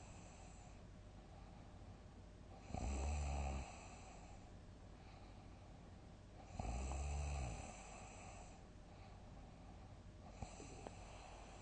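A sleeping person snoring loudly: two low snores about four seconds apart, each lasting about a second. A quieter breath with a couple of short clicks follows near the end, over a steady background hiss.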